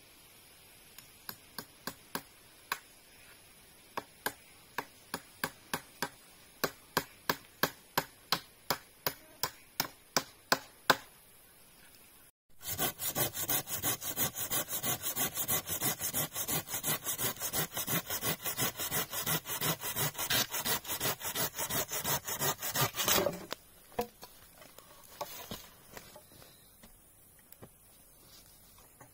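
Wood being chopped with sharp, separate blows that come faster and louder, then a hand saw cutting wood in quick, even strokes for about ten seconds. A few softer knocks follow near the end.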